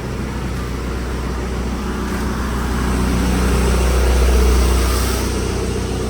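Diesel engine of a JLG machine running just after a cold start at about −5 degrees, a steady low hum that swells in revs about four seconds in and then settles back.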